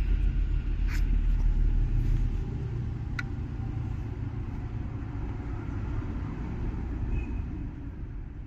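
Mercedes-Benz OM647 2.7-litre five-cylinder diesel engine (270 CDI) running, louder for the first two seconds and then steady and a little quieter, with two short clicks. It is the engine whose turbocharger noise is in question.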